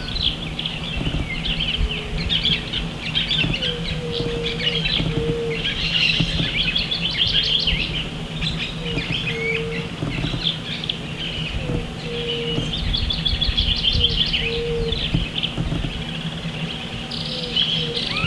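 Wetland bird chorus: many birds chirping and trilling at once. A short low note repeats every second or two over a steady low hum.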